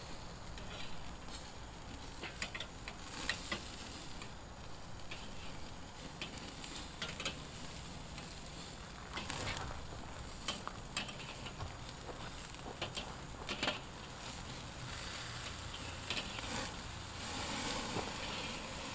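Hamburger patties and hot dogs sizzling on the grate of a charcoal kettle grill as they are flipped, with scattered clicks and scrapes of a metal spatula and tongs against the grate. Near the end the sizzle grows a little louder as dripping fat flares up over the coals.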